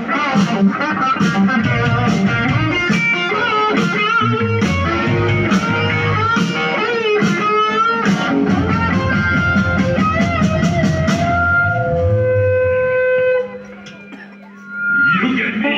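Live blues-rock band playing: an electric guitar lead line with bends and vibrato over drums keeping a steady beat. About 13 seconds in, the band stops short and only a held note rings on quietly. The full band crashes back in just before the end.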